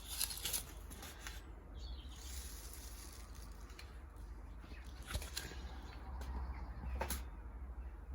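Faint scattered rustles and light clicks from hands working with seeds and soil, over a steady low rumble.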